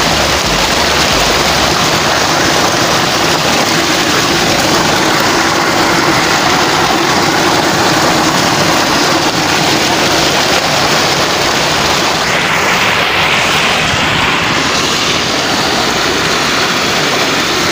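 Muddy floodwater gushing out of a culvert and pouring over a perforated metal fish trap: a loud, steady rush of water that turns a little hissier for a few seconds past the middle.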